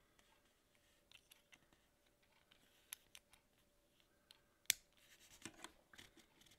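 Faint clicks and scratches of a small plastic Perfect Effect Scouting Force X robot figure being handled and its parts pressed into place, with one sharper snap about four and a half seconds in.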